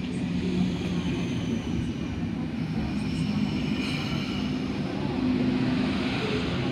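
Sydney Trains K-set double-deck electric train moving along the platform: a steady rumble of wheels and motors with a few held humming tones.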